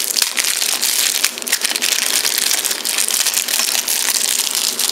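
Clear plastic packaging bag crinkling and rustling loudly and without a break as a power cord and power adapter are pulled out of it.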